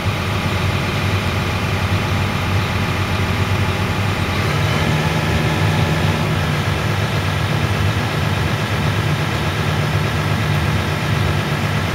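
John Deere excavator's diesel engine running steadily just after being started, its note shifting and getting a little louder about four seconds in.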